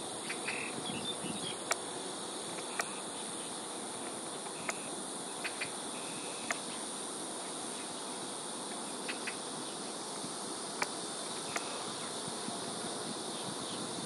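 Steady high-pitched insect drone, with a handful of short sharp ticks and a few brief faint chirps scattered through it.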